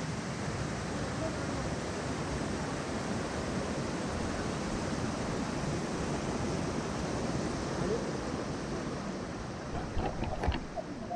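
Steady rush of a mountain stream's flowing water, with a few short knocks about ten seconds in.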